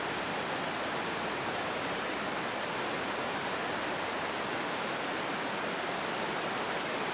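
Steady rushing of a whitewater river, recorded on camcorder tape and played back from the DVD.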